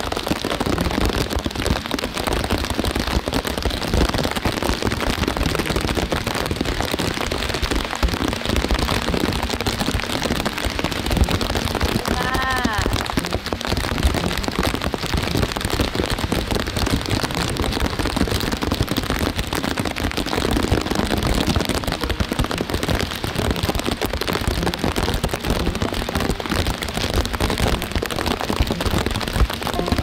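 Heavy rain pouring down steadily, a dense, even hiss of a summer downpour.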